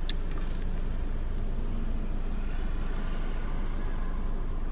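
Steady low rumble of vehicle noise, heard from inside a car with its windows down.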